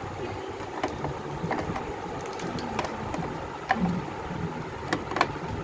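Ground cumin being sifted again through a hand sieve: irregular light taps and knocks, about two a second, with a soft rustle of powder on the mesh.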